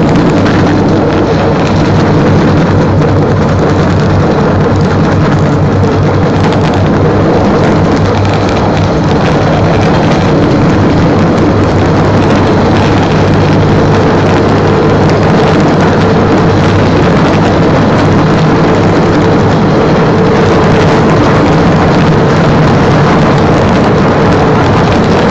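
Engine of a small rail vehicle running steadily as it travels along the track, a constant low drone with rolling noise.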